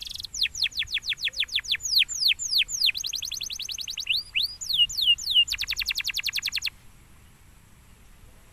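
Domestic canary singing: a quick run of sharp descending notes and a few rising-then-falling phrases, then a fast even trill that cuts off about two-thirds of the way through.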